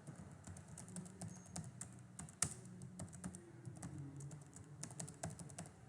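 Computer keyboard typing: irregular, quick keystrokes over a faint steady low hum.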